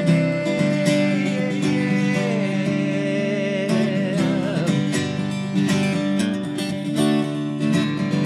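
Acoustic guitar strummed in a steady rhythm, ringing chords, with a wordless sung line that glides and wavers over it through the middle.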